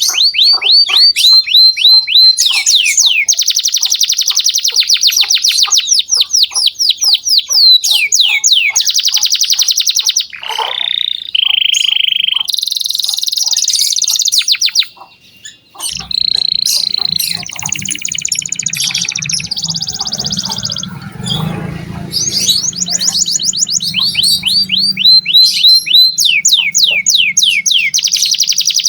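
Domestic canary singing a long, loud song of rapid trills and fast runs of repeated sweeping notes, changing phrase every second or two, with a brief break about halfway through. A low hum sits under the song for several seconds after the break.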